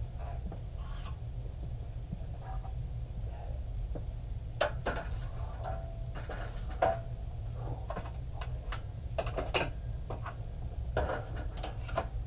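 Weight plates being loaded onto a barbell: scattered metal clanks and clinks, a few in quick succession, some with a brief ring, starting about four seconds in and coming again near the end.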